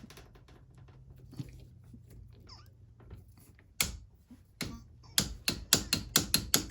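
Tekton 3/8-inch drive click-type torque wrench on a head bolt: one sharp click about four seconds in, then a quick run of ratchet clicks, about six a second, near the end.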